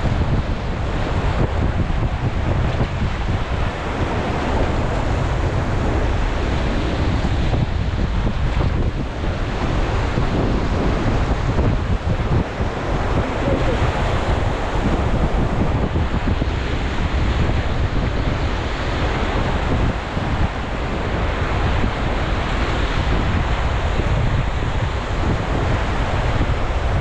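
Steady rushing of whitewater river rapids around a raft, with heavy wind buffeting the microphone.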